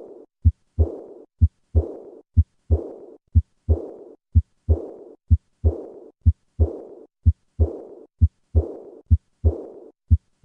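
Heart sounds with the murmur of aortic regurgitation, beating about once a second. Each beat gives two sharp thumps, and a high-pitched diastolic murmur begins immediately after the second heart sound and fades away before the next beat.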